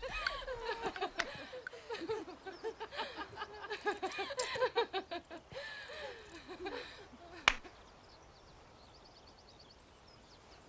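Voices laughing and chattering without clear words, fading out about seven seconds in. A single sharp snap follows, then faint high bird chirps.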